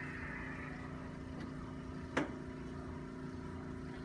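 A steady low room hum, broken about two seconds in by one sharp click.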